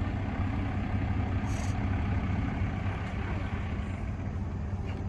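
A motor vehicle's engine idling steadily, a low even hum, with a brief faint rustle about one and a half seconds in.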